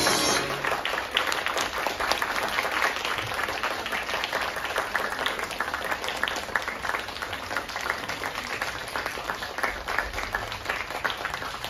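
Audience applauding, a dense patter of hand claps that slowly grows quieter; the show's closing music ends about half a second in.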